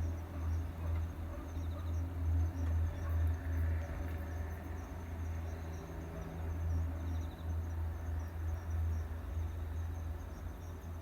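A steady low rumble, pulsing slightly, with faint high insect chirps and trills, cricket-like, above it.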